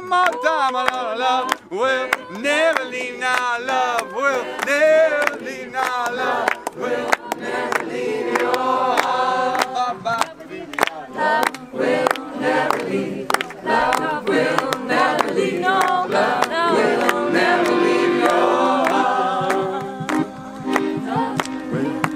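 Group of men and women singing a repeated chant-like song together, with steady hand claps keeping the beat.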